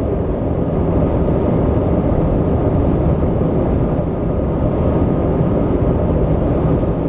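Steady cabin noise of an Airbus A321 airliner in flight, heard from an economy seat: an even, unbroken low rumble of engines and rushing air.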